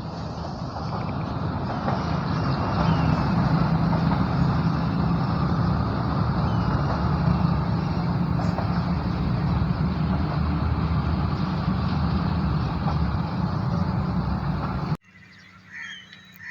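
Diesel-hauled passenger train passing close by: a steady engine drone under the rumble and rush of the rolling train, building over the first couple of seconds. It cuts off abruptly about 15 seconds in, leaving faint insect or bird chirps.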